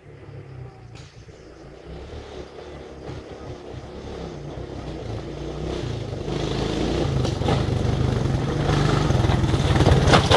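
A motor vehicle's engine approaching and growing steadily louder until it is close by.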